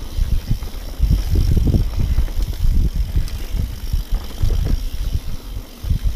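Mountain bike rolling downhill on a rocky dirt singletrack: a heavy low rumble of tyres and wind on the microphone, with frequent short knocks and rattles as the bike goes over rocks and bumps.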